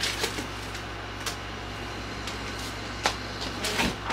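Steady mechanical hum in the room, with a few light clicks and knocks of small objects being picked up and set down.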